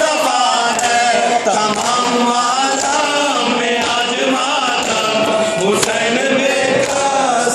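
Two men singing a noha, a Shia Urdu lament, together into a microphone with no instruments, the melody held in long wavering lines. Sharp slaps from chest-beating (matam) cut through now and then.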